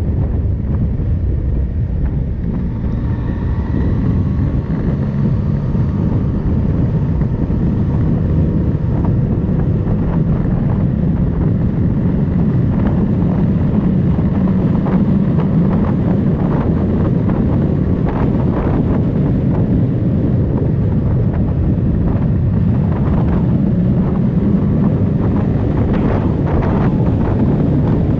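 Steady wind noise buffeting the microphone of a moving motorcycle, with the engine running faintly underneath.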